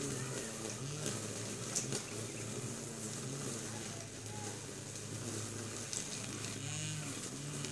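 Handheld power trimmer motor running while cutting weeds, its hum stepping up in pitch as it is revved and dropping back, with a long lower stretch in the middle and repeated rev-ups near the end.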